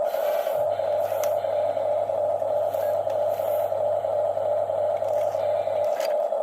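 Electric gear motors of radio-controlled toy excavators whining steadily. A lower hum joins about half a second in and stops near the end, with a few short clicks.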